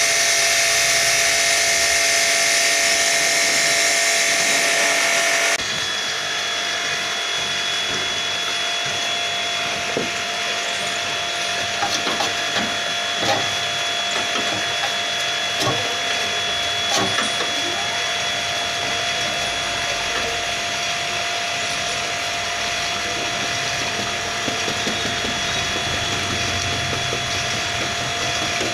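A loud, steady hiss with a hum under it cuts off suddenly about six seconds in. A steady machine hum is left, with scattered knocks and clicks of handling.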